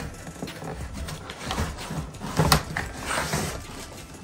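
Plastic wrapping rustling and crinkling as plastic-wrapped metal pots are handled and packed back into a cardboard box, with a sharp knock about two and a half seconds in.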